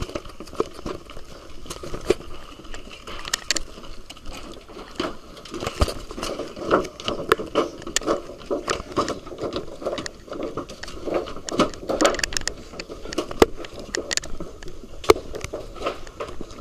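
Irregular footsteps and scuffs of people stepping across piled rubber tires, with many sharp knocks and clicks.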